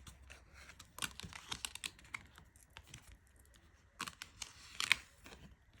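Tarot cards being handled: scattered light clicks and taps of card stock, with two sharper ones about four and five seconds in.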